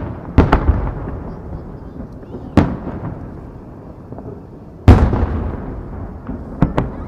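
Aerial firework shells bursting: a quick pair of booms about half a second in, another at about two and a half seconds, the loudest just before five seconds, and a quick pair near the end, each trailing off in a long rolling echo.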